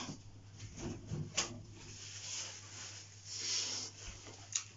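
Faint breathy and rubbing noises from a saline nasal rinse at a bathroom sink. There are a couple of short soft sounds early on, then a longer soft hiss a little past three seconds.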